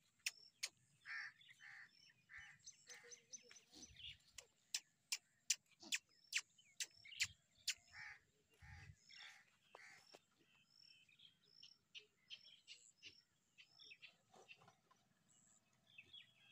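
Birds chirping faintly, with a run of sharp clicks, two or three a second for about the first ten seconds, then sparser.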